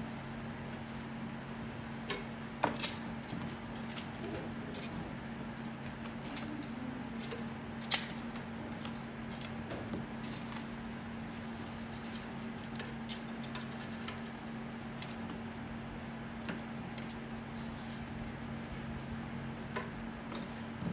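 Scattered clicks and clinks of kitchen utensils and dishes being handled, with a few louder knocks a little under three seconds in and about eight seconds in, over a steady low hum.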